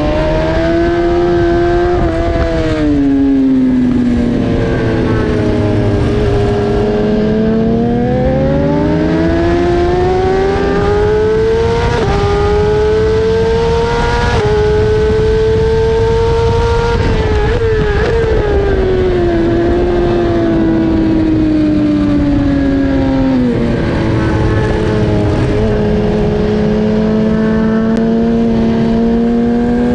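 BMW S1000RR inline-four racing engine under hard riding on track, its revs repeatedly climbing on the throttle and falling off on braking, with the pitch stepping abruptly at gear changes, over a steady rush of wind noise.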